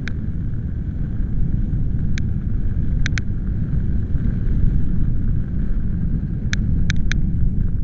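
Gusty storm wind buffeting the microphone in a loud, steady low rumble. A few very short high pips sound scattered through it, some in quick pairs.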